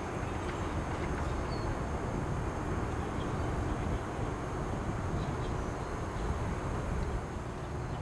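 Outdoor ambience: a steady low rumble with a few faint, short high chirps.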